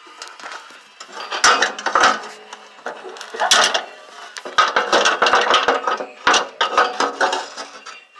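Metal clanking and rattling as the back panel and its bolts are worked loose on a riding mower, with a run of sharp knocks and clicks.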